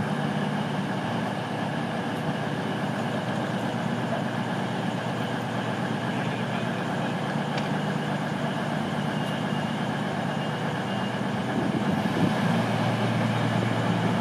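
Cross Country Class 221 'Super Voyager' diesel multiple unit standing at the platform with its underfloor Cummins diesel engines idling steadily. Near the end the engine note drops lower and grows a little louder.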